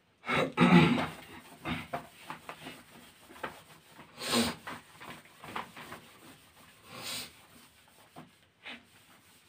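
Teaching board being wiped clean by hand: irregular rubbing strokes, the loudest about half a second to a second in, with further strokes around four and seven seconds in.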